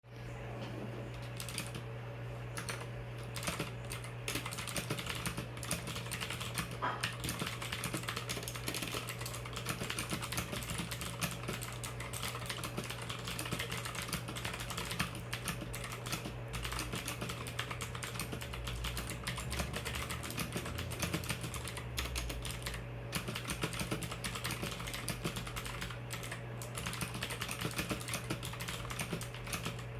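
Typing on a mechanical keyboard with clicky Gateron Blue switches: a continuous run of rapid key clicks, over a steady low hum.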